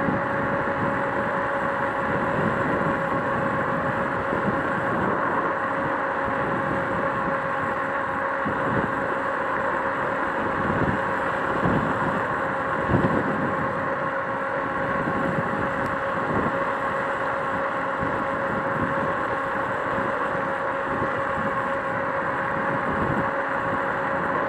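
Joyor S5 electric scooter cruising at a steady speed: the motor's steady whine holds one pitch over wind buffeting the microphone and tyre noise.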